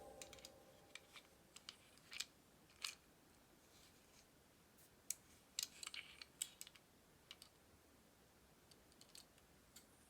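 Faint, scattered light clicks and taps of small toy cars being handled, with a brief cluster of them about halfway through.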